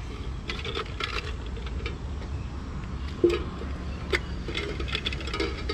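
Numbered tokens rattling and clicking in a tin can as a hand rummages in it to draw one: a scatter of short irregular clicks over a steady low hum.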